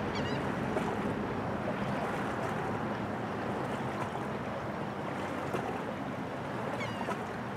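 Steady waterside ambience of wind and small waves, with a low steady drone underneath. A few faint bird calls come near the start and again about seven seconds in.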